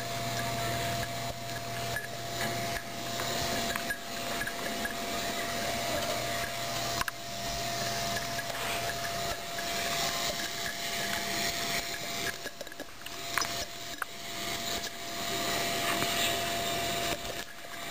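Rubbing and rustling noise against the camera microphone as a papillon dog plays right up against it, rising and falling in loudness, over a thin steady whine.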